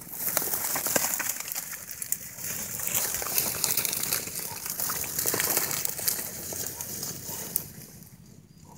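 Dry reed stalks rustling and crackling as they are pushed through and trampled, with many small snaps, dying down about a second before the end.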